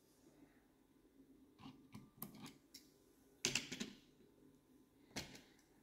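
Faint clicks and light knocks of small diecast toy cars being handled, lifted and set down: scattered ticks, a louder cluster about three and a half seconds in, and one more knock a little after five seconds.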